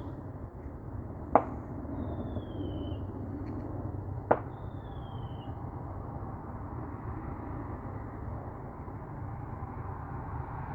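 Two sharp distant bangs about three seconds apart, each followed by a faint falling whistle, over a steady low background rumble.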